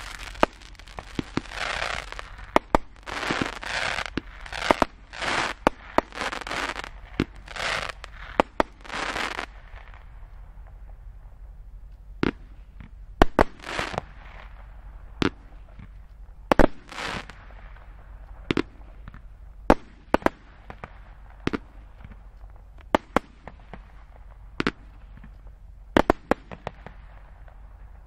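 Keller 'Grande Finale' compound fireworks battery firing its finale: a rapid run of bursts of crackle mixed with sharp bangs for about the first ten seconds. After that it thins out to scattered single bangs and occasional crackling bursts.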